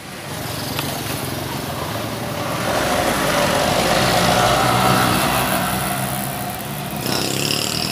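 A motor vehicle's engine going by, swelling to its loudest about halfway through and then fading.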